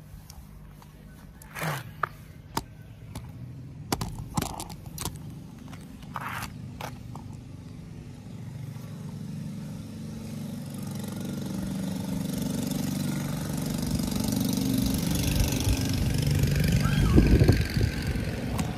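A motor vehicle engine growing gradually louder over several seconds, peaking near the end, as if one is approaching. A few sharp clicks and knocks come in the first seconds.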